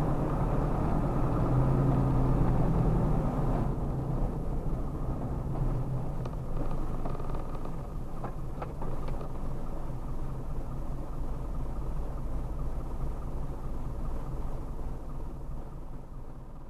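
Engine hum and road rumble heard on board a moving vehicle. It is louder for the first few seconds and eases as the vehicle slows to a stop, then goes on as a softer steady rumble that fades out near the end.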